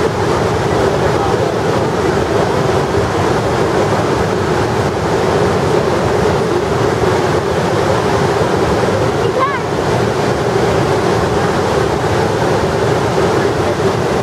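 Floodwater pouring out of a dam spillway from a full reservoir: a loud, steady rushing of churning water and spray.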